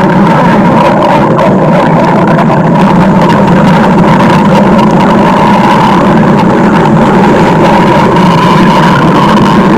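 Stomach-growl sound effect: a very loud, continuous rumbling growl that holds steady without a break.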